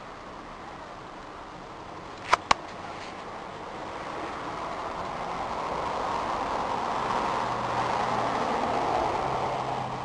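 Two sharp clicks about two seconds in, then the rushing noise of a passing vehicle that swells over several seconds and eases off near the end.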